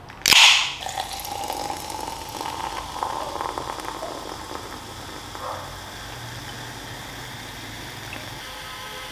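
A short, loud hiss about a quarter second in, then cola poured from an aluminium can into a glass, splashing and fizzing as the foam rises; the pour thins and the fizz carries on steadily.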